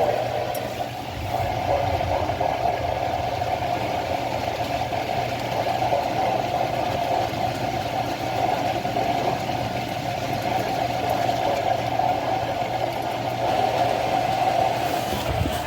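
Steady noisy static from a weather radio receiver, with a hum and a mid-pitched band, drowning out the broadcast voice: reception breaking up. It ends abruptly near the end.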